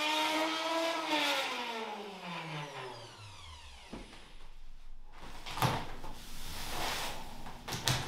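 Electric router on a router sled running at speed, then switched off: its whine falls steadily in pitch over about three seconds as the motor winds down and stops. After a short quiet, a few sharp knocks and brushing as sawdust is swept off the planed door with a push broom.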